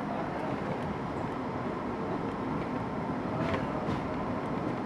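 R62A subway train running along elevated track, a steady noise of wheels on rail heard from inside the front car, with a couple of faint sharp clicks about three and a half seconds in.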